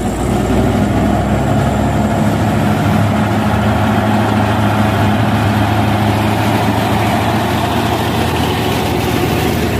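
A heavy truck's diesel engine idling, loud and steady.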